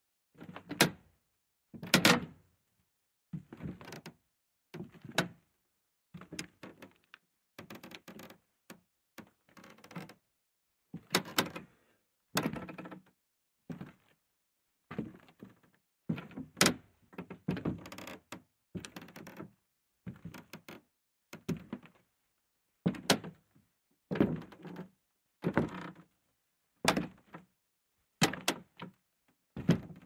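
Creaky wooden floorboards creaking in a long string of short, separate creaks, about one a second with silence between.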